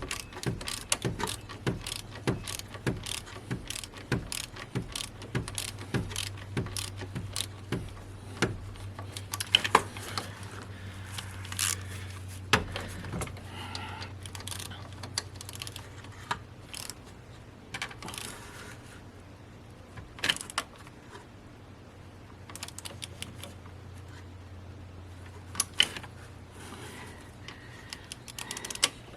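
A ratchet wrench clicking as the alternator's lower mounting bolt is tightened to 38 Nm, about three or four clicks a second for the first eight seconds, then scattered clicks and tool clatter.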